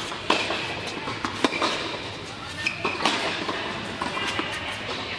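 Tennis rally on an indoor hard court: racket strikes on the ball and ball bounces as sharp pops roughly a second apart, echoing in the hall.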